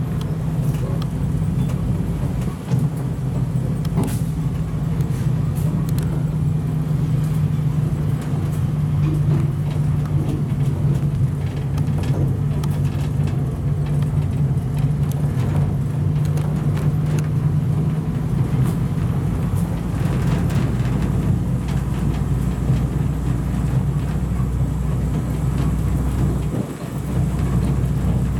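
A motor vehicle running steadily on the move, a constant low engine hum, with a short drop in the drone near the end.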